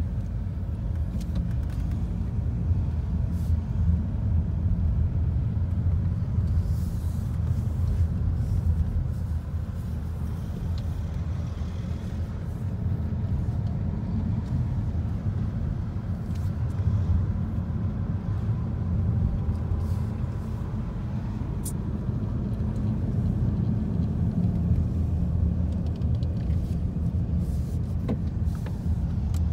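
Steady low rumble of a car's engine and tyres heard from inside the cabin while driving a winding mountain road, swelling and easing a little, with a few faint ticks.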